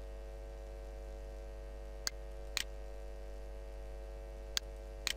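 Computer mouse clicking, a few short sharp clicks, some in quick pairs, about two seconds in and again near the end, over a steady electrical hum.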